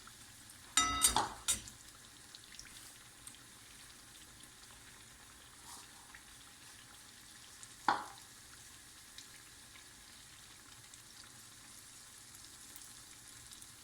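Cornflour vada deep-frying in hot oil, a steady faint sizzle. A brief loud ringing clatter about a second in and a single knock near eight seconds stand out over it.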